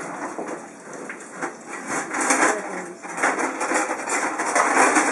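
Clattering and rustling as people rummage through kitchen equipment, a dense run of quick clicks and rustles that gets busier about two seconds in.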